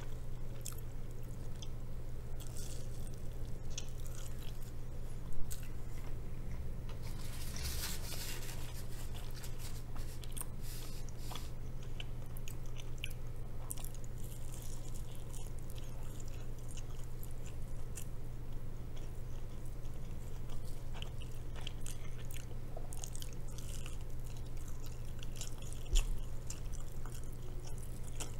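Close-up chewing and crunching of a fried kimchi-cheese rice ball, with scattered crisp bites, a denser crackle about eight seconds in and a couple of sharper clicks. A steady low hum runs underneath.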